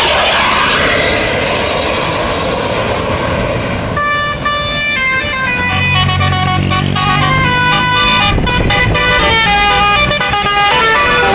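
Telolet basuri multi-tone bus air horn playing a quick tune of changing notes, from about four seconds in until near the end, over a bus engine's steady low hum. Before the tune there is a loud noisy rush.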